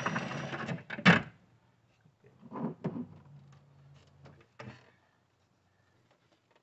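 Scattered light clicks and knocks of a wrench and plastic engine-bay parts being handled, with one sharp click about a second in.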